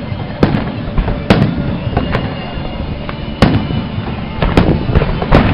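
Aerial firework shells bursting in a display: a string of sharp bangs and cracks, the loudest coming roughly every second, over a continuous low rumble of further bursts.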